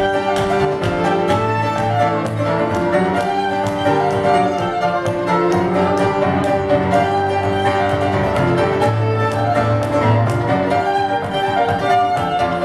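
Fiddle and grand piano playing an instrumental passage together, the fiddle bowing a quick melody over the piano's accompaniment.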